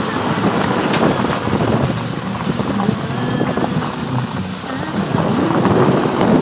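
Car driving on a snowy road: a steady rush of wind and tyre noise through an open side window.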